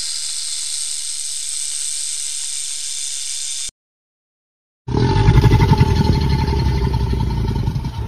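A snake hissing, one steady hiss that stops abruptly after about four seconds. After a short silence a caiman's loud, low, throbbing growl starts and carries on.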